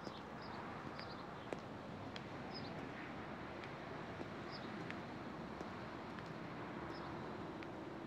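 Roadside outdoor ambience: a steady hiss of distant traffic, with short high bird chirps every second or two and a few faint clicks.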